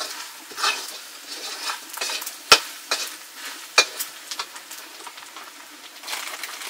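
Food sizzling in a frying pan while being stirred, with a sharp knock of the utensil against the pan about two and a half seconds in and a couple of lighter knocks after.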